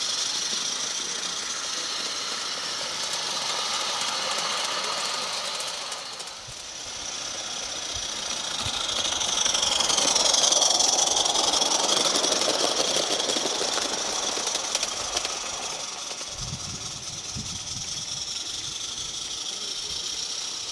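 A 16 mm-scale live-steam tank locomotive on 45 mm gauge garden track running past with a steady hiss of steam, loudest as it passes about halfway through.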